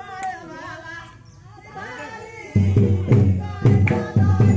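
People's voices, then a little over halfway through, loud drumming suddenly starts: a fast rhythm of heavy drum strokes with voices carrying on under it.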